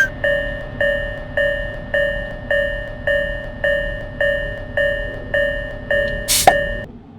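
Railroad crossing warning bell ringing in an even clang-clang rhythm, a little under two strikes a second. A sharp click comes near the end, and the bell then stops abruptly.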